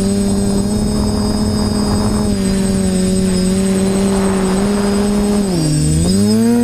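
TBS Discovery quadcopter's electric motors and propellers whining steadily in flight; about five and a half seconds in the pitch dips as the throttle eases off, then climbs back up.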